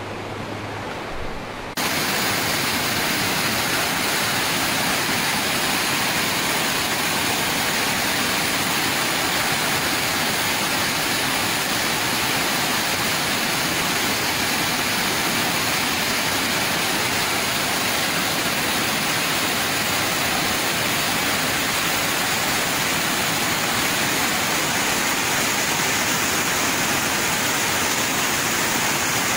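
Floodwater rushing in a torrent: a loud, steady rush that starts suddenly about two seconds in and holds unchanged. Before it there is a quieter stretch with a low hum.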